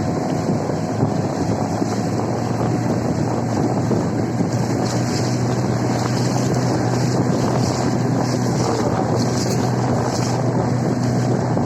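Steady rush of a waterfall, a dense, unbroken roar of falling water, with some wind buffeting the microphone.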